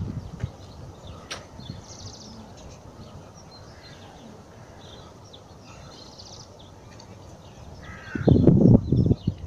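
Birds calling: scattered short high chirps and chattering notes. About a second of loud, low noise comes near the end.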